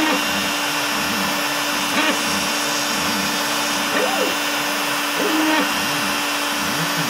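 Bosch Colt trim router running steadily at high speed on an OX CNC machine while its 1/32-inch single-flute bit plunges and cuts foam board. The machine's stepper motors whine, rising and falling in pitch, each time the head moves between short cuts.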